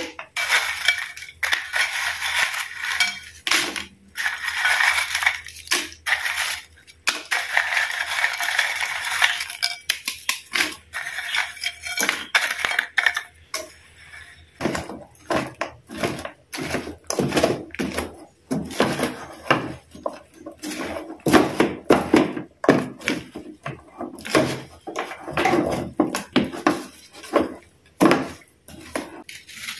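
Marie biscuits tipped from a bowl into a non-stick wok of Nestum mixture, crackling and clattering against each other. From about halfway a wooden spatula stirs and breaks them in the pan, a long run of short crunches and knocks.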